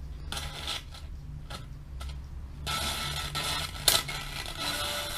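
Sony STR-6045 stereo receiver playing the radio while being tuned: a faint broadcast voice over a steady hum, then about two and a half seconds in a sudden wash of static hiss between stations, with one sharp crackle near the end.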